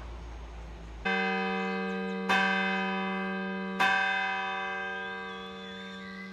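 Church tower bell ringing, struck three times a little over a second apart, each stroke ringing on and slowly fading.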